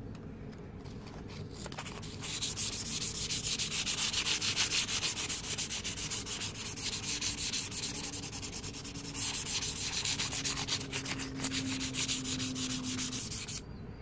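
Sandpaper rubbed back and forth in quick strokes along a forged steel knife blade made from plow parts, a hissing scrape. It starts about two seconds in, eases briefly in the middle, and stops shortly before the end.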